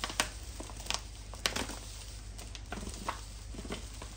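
Plastic rice flour packet crinkling as flour is poured from it into a measuring cup, with scattered light clicks and rustles.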